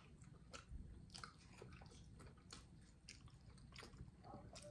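A person chewing and biting into barbecue ribs close to the microphone: faint, irregular clicks of chewing, several a second.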